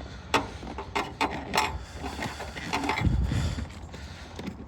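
Plastic engine-bay trim pieces being handled and pulled loose by hand: a series of sharp clicks and knocks, with a heavier thump about three seconds in.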